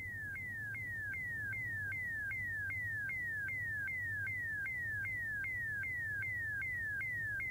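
Synthesized electronic scanning tone of a submarine's periscope display: a short falling sweep in pitch, repeated evenly about two and a half times a second, over a steady low hum.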